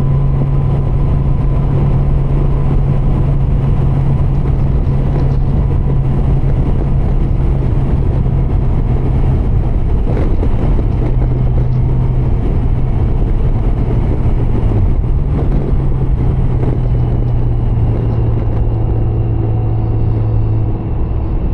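Riding noise picked up by a helmet microphone on a 2013 Honda Gold Wing GL1800: wind rushing past the helmet over the low, even drone of the flat-six engine at a steady speed.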